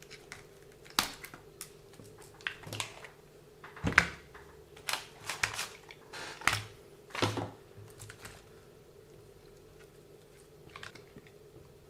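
Irregular clicks, taps and short scrapes of small tools and plastic and metal parts being handled as a WLtoys 144001 RC car is taken apart, with the sharpest click about four seconds in.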